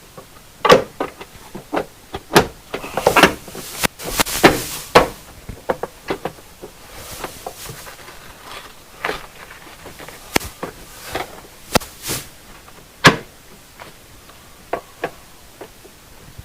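Irregular knocks, clunks and clicks of parts being handled and fitted during truck cab interior reassembly, with brief rustling, busiest in the first five seconds and sparser after.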